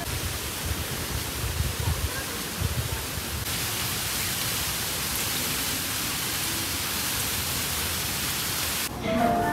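Steady rush of splashing water from a tiered garden fountain, brighter and stronger from about a third of the way in. Before that, low gusts of wind rumble on the microphone. Near the end the water sound cuts off abruptly.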